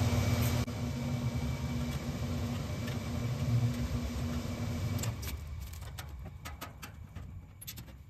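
A steady low machine hum cuts off abruptly about five seconds in. Small metallic clicks and taps follow as a screwdriver takes the screws out of an air-conditioning condenser's sheet-metal service panel.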